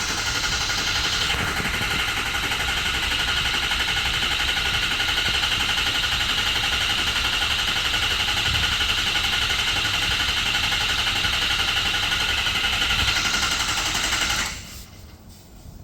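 Ford 6.0 Power Stroke V8 diesel engine with a fast, even mechanical clatter after its high-pressure oil pump replacement, then cut off abruptly near the end.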